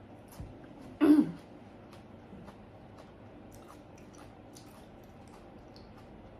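Person chewing food with faint, scattered crunchy clicks, and about a second in one short, loud vocal sound from the eater that falls in pitch.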